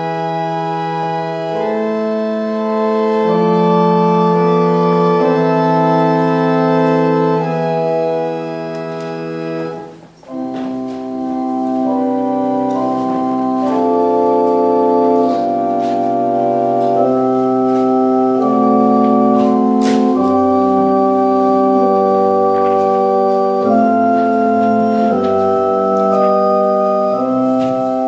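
Organ playing a slow prelude in long held chords. The music breaks off briefly about ten seconds in, then goes on with a new passage.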